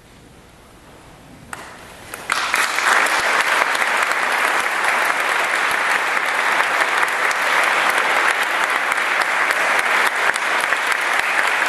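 Audience applause in a concert hall: the hall is nearly quiet for the first second and a half, then clapping starts, quickly builds to full strength and carries on steadily.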